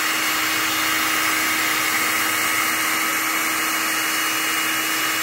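Electric hand mixer running at a steady speed, its twin beaters whipping meringue in a glass bowl. The meringue is nearly done, fluffy and close to stiff.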